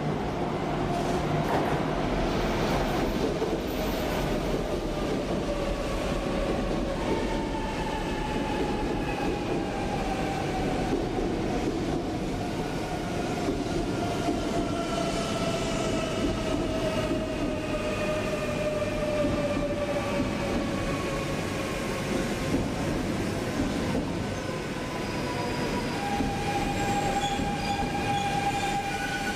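E1 series double-decker Shinkansen ('Max') pulling into a platform and braking, its running noise carrying a whine of several tones that slowly fall in pitch as it slows. Near the end a steady high tone sets in.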